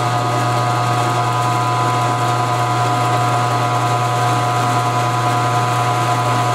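Milling machine spindle running at a steady speed with a drill bit in the chuck: a constant hum under a whine of several steady high tones.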